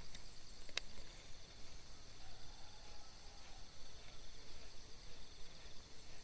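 Insects trilling steadily in several high-pitched layers, with one sharp click just under a second in.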